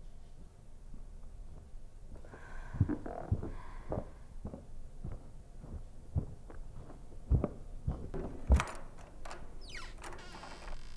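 Dull thumps and knocks at uneven intervals, the loudest about seven and a half and eight and a half seconds in, with soft rustling between them and a brief scraping sound near the end.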